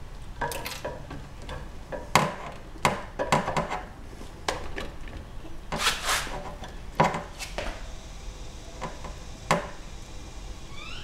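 Irregular knocks, clicks and rattles of the parts of a Toyota Prius high-voltage battery pack being handled as one module is worked loose and pulled out by hand. A few short rising chirps, like a bird's, come in near the end.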